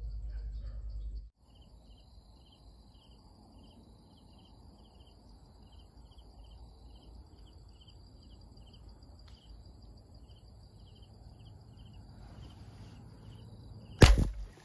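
Insects chirping, a short chirp about twice a second over a steady high buzz, after a second of low rumble that cuts off. Near the end comes one loud sharp snap, the shot of a two-band rubber-powered fish speargun.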